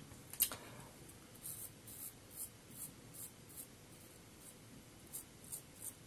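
Fatip slant double-edge safety razor scraping through five-day stubble on the upper lip in short, faint strokes, about two a second, beginning about a second and a half in. A single click sounds about half a second in.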